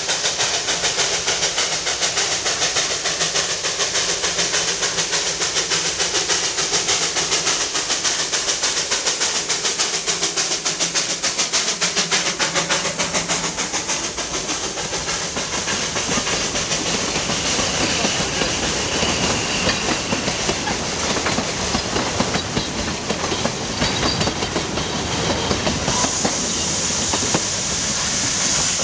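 Puffing Billy Railway's narrow-gauge NA-class steam locomotive 14A working past with a fast, rhythmic exhaust beat. About halfway through, its carriages rattle and clack past over the rail joints.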